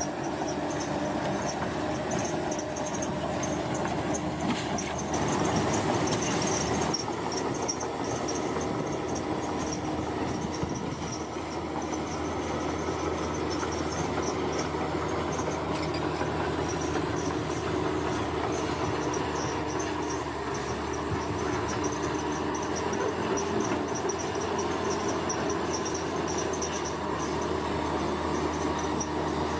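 Bulldozer's diesel engine running steadily as it works, with a high, fast pulsing chirr over it.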